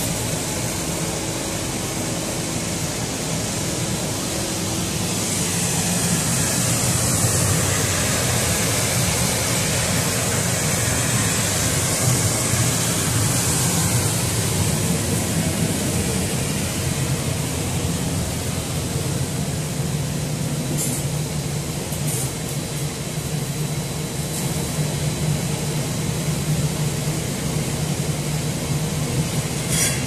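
Industrial microwave tunnel dryer running: a steady low mechanical hum with a hiss of air from its fans, the hiss swelling for a while in the middle. A few short clicks in the second half.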